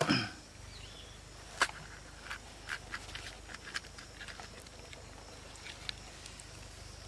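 Scattered short crunches and clicks of crisp pani puri shells being cracked open and eaten, the sharpest about one and a half seconds in, over a faint low hum.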